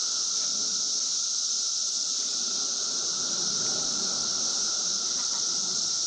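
Chorus of 17-year periodical cicadas: a steady, unbroken high-pitched buzz with a fainter lower drone beneath it.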